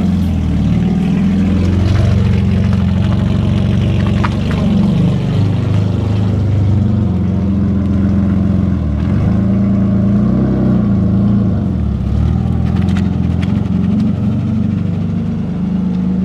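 BMW E36 drift car's engine running loud, its revs rising and falling as the car is driven.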